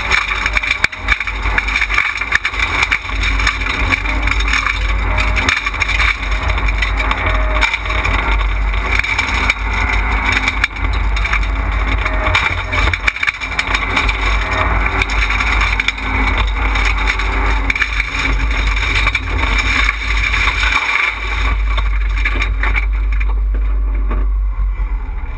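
Fiat Panda rally car flat out on gravel, heard from inside the cabin: engine and tyre noise with a strong low rumble and stones knocking against the underbody. Near the end the gravel hiss falls away and a low rumble is left as the car goes off the road into the trees.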